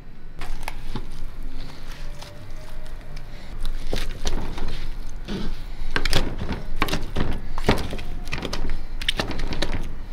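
Knife chopping roasted lamb on a cutting board: a string of irregular knocks and thunks, about two a second, starting about half a second in.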